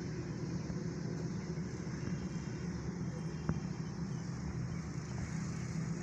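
Steady low rumble of bitumen heating equipment running, with one sharp click about halfway through.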